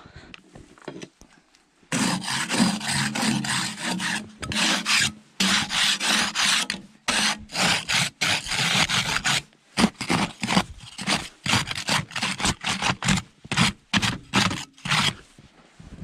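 A hand-held snow brush scraping and sweeping snow off the gritty treads of a truck camper's metal steps, in quick repeated strokes starting about two seconds in.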